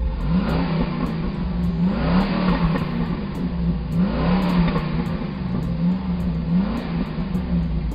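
Engine sound effect of a car revving, its pitch rising and falling several times.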